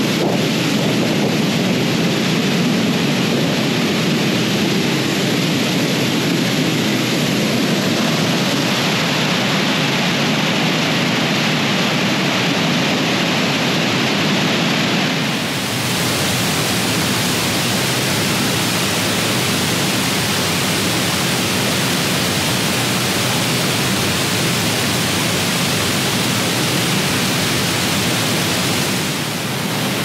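Waterfall pouring: a steady, dense rush of falling water that turns brighter and hissier about halfway through.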